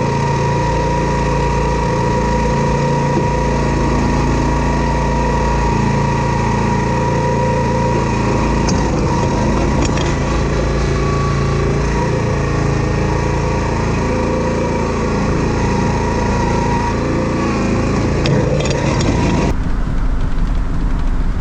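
Vehicle engine and road noise while driving, a steady drone with a constant hum. About 19 seconds in the sound changes abruptly and the higher part drops away.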